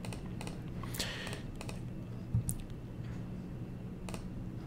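A handful of separate computer mouse clicks, spaced irregularly, over a low steady hum.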